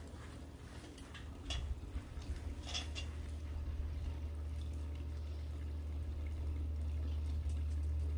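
Steady low hum with faint trickling water, and a few light taps in the first few seconds.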